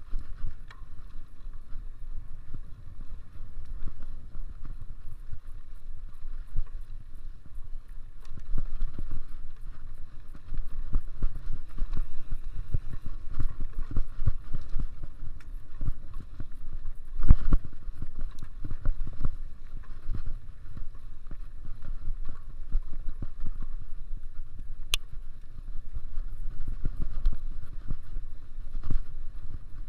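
Mountain bike being ridden over a dirt cross-country trail: a steady low rumble of wind on the microphone and tyres on the ground, broken by frequent knocks and rattles from bumps, with one sharp click late on.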